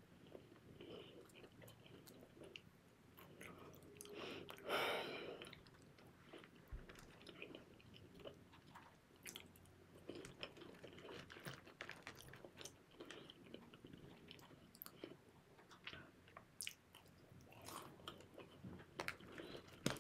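Faint close-up chewing and mouth sounds of someone eating fried chicken wings, with scattered small clicks. About five seconds in there is a brief, louder noise.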